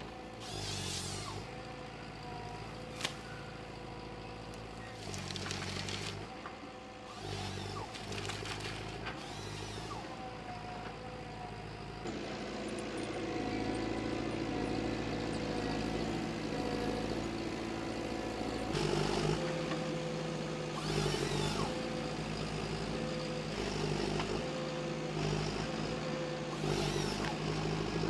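Forestry harvester with a Log Max harvesting head at work: its diesel engine and hydraulics running steadily, changing pitch with load twice. Several short rushing bursts of noise are heard over it.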